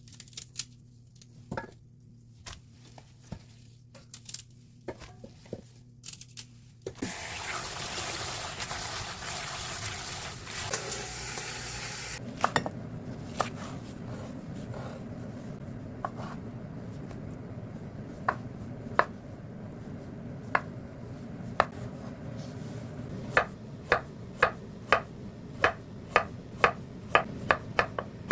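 Kitchen work: light clattering, then a tap running for about five seconds, then a knife chopping on a cutting board, the strokes growing quicker and more regular near the end over a steady low hum.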